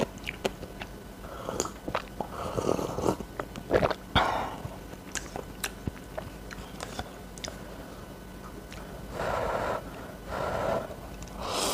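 Close-up eating sounds of instant cup noodles: sips and slurps of broth and noodles and chewing, in several short noisy stretches, over a run of sharp little clicks and taps.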